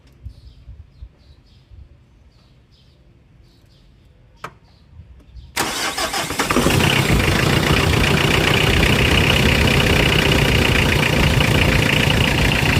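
Mitsubishi 4D56 four-cylinder diesel cranked on its freshly repaired starter motor: after a single sharp click, the engine starts suddenly about halfway through, catches within about a second and runs steadily. The starter now cranks and the engine starts, so the no-crank fault is cured.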